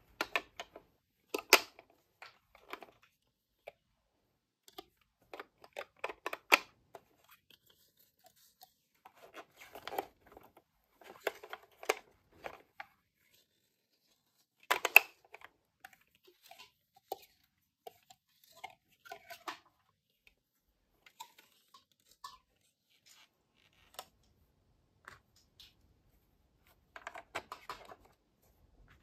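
Small plastic toy kitchen pieces and packaging being handled, heard as scattered clicks, taps and crinkly rustles in short bursts with gaps of silence between. The sharpest clicks come about a second and a half in, around six seconds in, and about halfway through.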